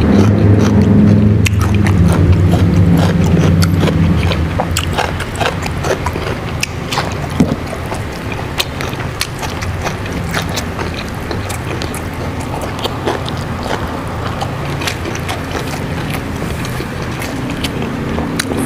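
Close-up chewing and crunching of raw vegetables, with many sharp mouth clicks throughout. A low steady hum is loud at the start and fades out about four seconds in.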